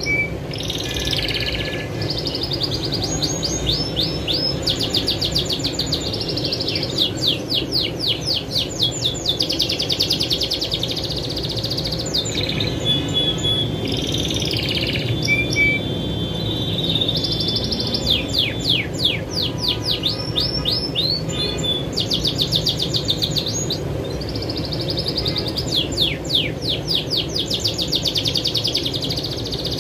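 Caged domestic canary singing a long, unbroken song of fast trills and rolls, with a few short whistled notes.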